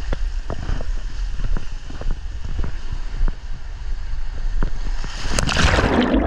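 Water rushing and the microphone buffeting as a rider slides down a dark water slide, with scattered knocks of the camera against the slide. About five seconds in comes a loud splash as the rider plunges into the pool.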